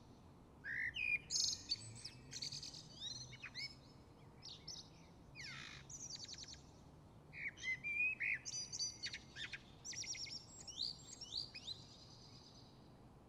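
Songbirds singing in spring, a run of quick, high chirped phrases with short gaps between them and one falling sweep near the middle; the song stops near the end.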